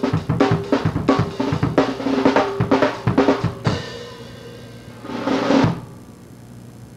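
Drum kit played with sticks: fast, busy snare and bass drum strokes that stop about three and a half seconds in. A short roll swells and ends on a low bass drum thump about five and a half seconds in, over a low steady hum.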